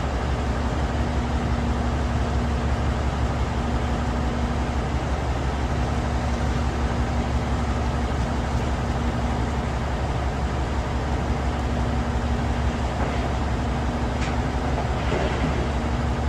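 Large excavator's engine running steadily under working load: a continuous low drone with a fast, even pulse and a constant hum above it.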